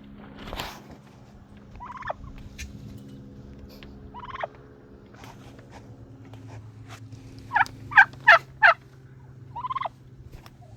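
Domestic turkeys calling in short, separate calls, with a run of four loud calls close together late on.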